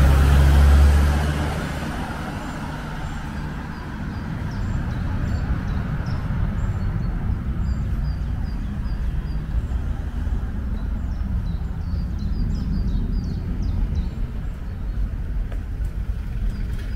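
A car passes close by, loudest right at the start and fading within about two seconds. After it a low steady rumble goes on, with quick, short high chirps scattered over it from about three seconds in.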